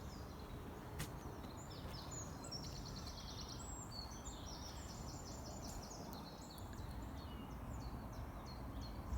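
Small songbirds singing, quick high-pitched trills and chirps throughout, over a faint low background rumble, with a single click about a second in.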